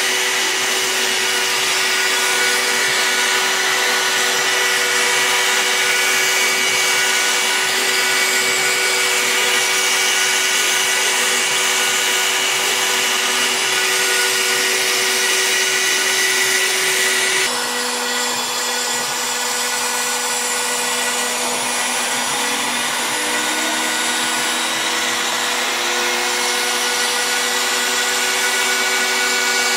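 Router spindle of a homemade CNC machine running at speed while its bit cuts a letter pocket into a wooden board: a loud, steady whine. About 17 seconds in, the tone shifts and the sound gets slightly quieter.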